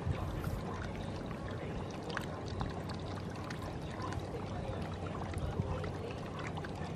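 Steady outdoor ambience by the water: a low rumble with a faint steady hum, and a light trickling, lapping water sound with small scattered ticks.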